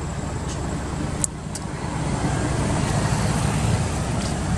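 Steady low outdoor rumble, with a few short sharp clicks about a second in.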